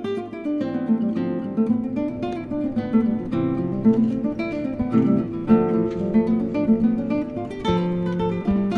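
Background music played on acoustic guitar: a steady run of quick plucked notes and strums.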